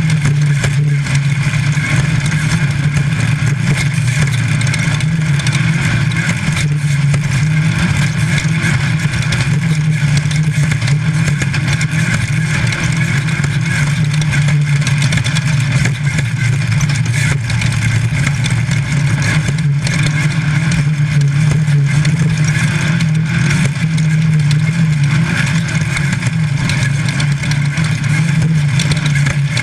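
Race-prepped VW engine of a Class 5 Baja Bug running hard at high, fairly steady revs, heard from inside the car. The pitch wavers slightly with throttle over a continuous rush of wind and road noise.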